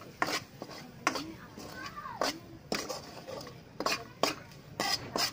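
A steel ladle scraping and clinking against a metal kadhai while stirring chilli powder being roasted in hot oil. The short strokes come irregularly, roughly one every half second.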